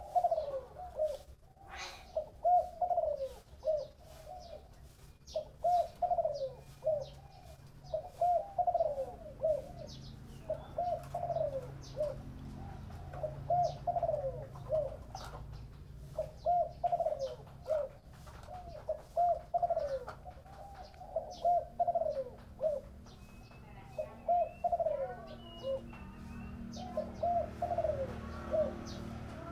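Spotted dove cooing again and again: phrases of a few falling coos, repeated every couple of seconds.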